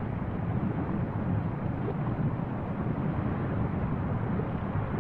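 Steady low rumble of an erupting volcano, lava fountaining from the cone's rim, with no breaks or separate blasts.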